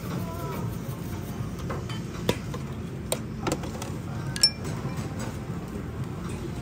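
Chopsticks clinking against a ceramic ramen bowl while stirring the noodles: four light knocks in the second half, the last the loudest with a short ring.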